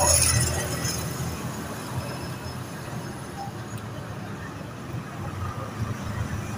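Steady low rumble of street traffic, with a brief louder noisy burst at the very start.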